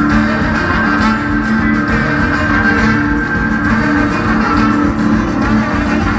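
Live band music in an instrumental passage without vocals, a guitar to the fore over steady low bass, with long held notes.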